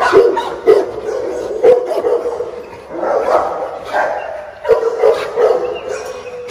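Dogs in kennel runs barking repeatedly, short sharp barks about once a second, over a steady whine.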